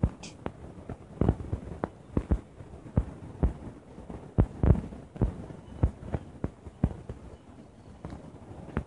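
Irregular dull thumps and pops, about two a second, some louder than others, the loudest near the middle.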